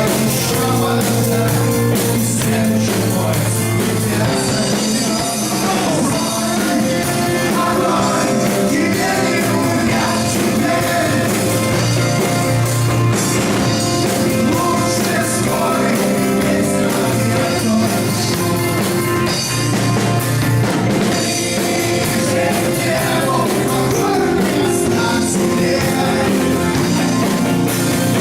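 Rock band playing with drums and guitars: a steady, loud full-band passage.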